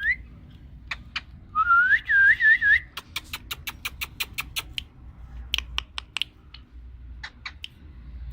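Ringneck parrot whistling a short phrase of swooping notes, then a quick run of sharp clicks, about six a second, followed by a few scattered clicks.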